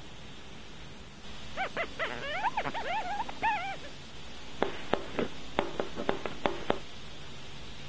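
A run of short, squeaky chirps that bend up and down in pitch, whimper-like, then about nine quick, sharp chopping knocks of a knife slicing mushrooms on a cutting board.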